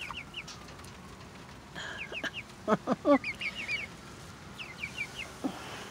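Nearly grown young hens (pullets) peeping in runs of short, high-pitched cheeps, still sounding like chicks. A few louder, lower calls that fall in pitch come about three seconds in.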